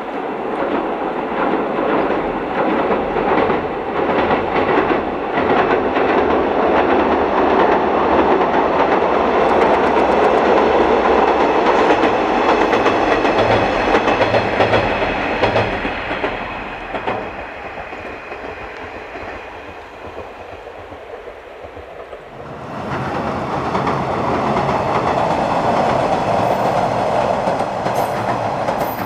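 JR East KiHa 110 diesel railcar crossing a railway bridge, its wheels clattering rhythmically over the rail joints as it passes, then fading away. About 22 seconds in, the sound cuts abruptly back to a loud passage of the same train.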